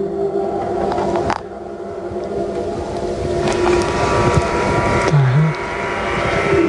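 A low, droning background score of held, overlapping tones, with a short swoosh just over a second in.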